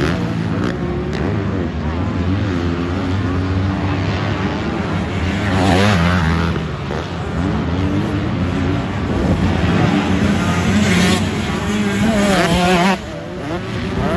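A racing engine revving hard and easing off over and over, its pitch climbing and falling with each change of throttle.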